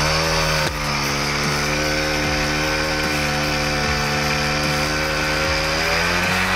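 Honda Dio two-stroke scooter engine running steadily at a constant speed while driving a high-pressure washer pump, with a brief dip less than a second in.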